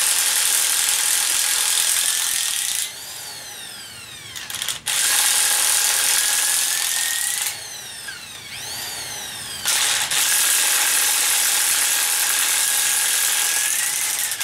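A Makita cordless power wrench running on the cylinder head bolts in three bursts. Each burst rises in pitch just before the trigger is released, then the motor winds down.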